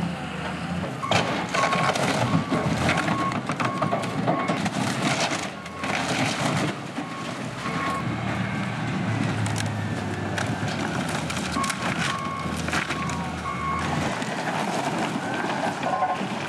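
Diesel engine of a John Deere 644J wheel loader running while its grapple smashes a wooden shack, with repeated cracks and crashes of breaking wood. The loader's reversing alarm beeps on and off in runs of short beeps.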